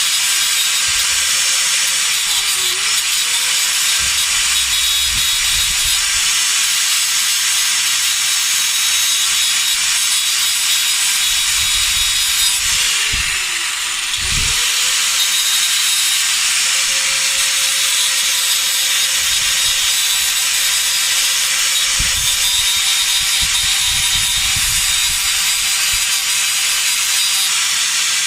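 Angle grinder with a grinding disc running steadily while grinding rust off a steel part. Its motor pitch dips briefly under load about three seconds in and again around fourteen seconds in.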